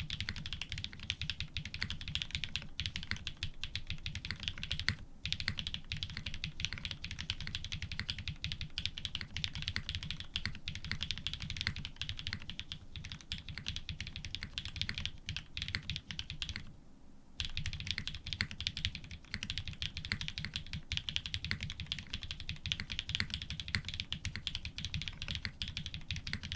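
Steady fast typing on a custom F1-8x mechanical keyboard with lubed linear switches (Cream stems in Cherry housings, TX 50 g springs) on an FR4 plate with GMK keycaps. The keystrokes run dense and even, with a short break about five seconds in and a brief pause of about half a second around seventeen seconds in.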